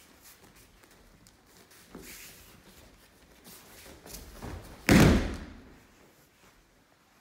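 A judo throw: a body landing on the tatami mat with one loud slap of a breakfall about five seconds in, after quieter scuffs of feet moving on the mat.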